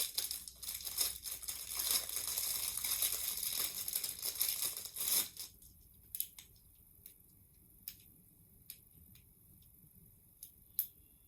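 Plastic packaging crinkling and rustling as it is handled, for about five seconds, then stopping; a few faint clicks and taps follow.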